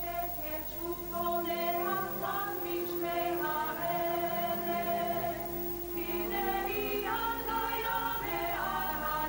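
Background music: a choir singing slow, long-held notes, several voices at once.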